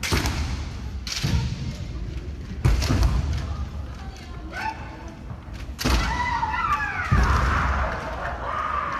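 Kendo bout: several sharp thuds of bare feet stamping on a wooden gym floor and bamboo shinai striking, with long, rising-and-falling kiai shouts from the fighters in the second half.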